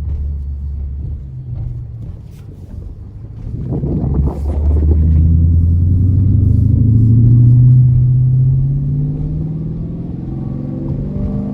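Dodge R/T's V8 engine pulling away hard about four seconds in, its pitch climbing steadily for several seconds before it eases off to a cruise.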